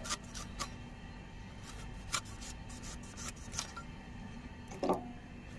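Raw green mango being sliced against a boti's fixed blade: short, irregular crisp cuts about eight times, with a louder knock near the end.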